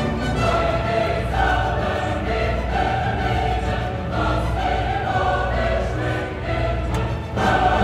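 Music with singing in long held notes, over a steady low hum.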